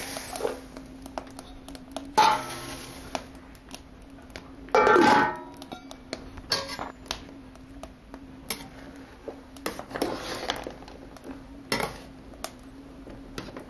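Metal spoon clinking and scraping against an enamel pot while boiling broth is stirred, with two louder clanks about two and five seconds in.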